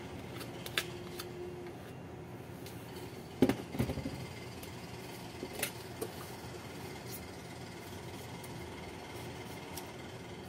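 A plastic spatula scraping spice paste off a stone pestle and tapping against a stone mortar, with a cluster of louder knocks about three and a half seconds in and a few lighter clicks after, over a steady low hum.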